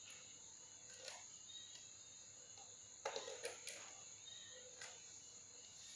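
Near silence: faint room tone with a steady high-pitched hiss and a few soft clicks, several of them clustered about three seconds in.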